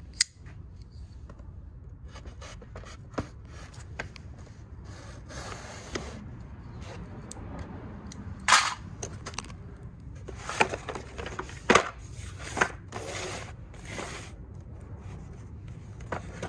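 Cardboard box being cut open with a knife and handled: a sharp click near the start, then repeated scrapes, rubs and clicks, with louder rasping bursts of cardboard scraping from about five seconds in.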